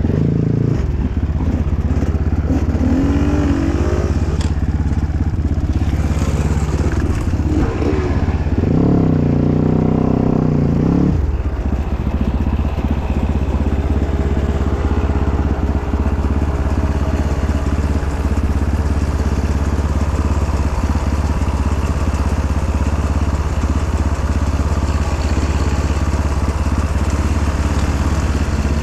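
Dirt bike engine running under way off-road, its note rising and falling twice in the first half as the throttle changes, then holding steady.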